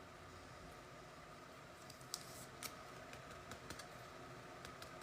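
Faint, scattered small clicks and taps over a quiet room hum, starting about two seconds in, a dozen or so at uneven intervals.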